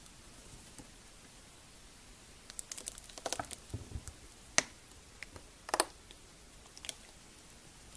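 Slime being pressed and worked by hand, giving a run of crackling clicks and sharp little pops from trapped air. There is one loud pop a little past the middle.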